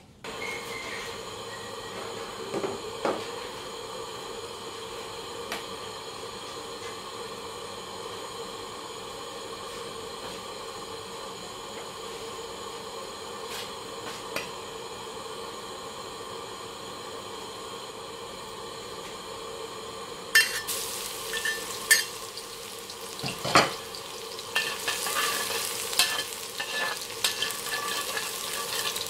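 A gas burner under a wok runs with a steady hiss while the oil heats. After about twenty seconds chopped garlic goes into the hot oil and sizzles and crackles, with a metal ladle clacking and scraping against the wok as it is stirred.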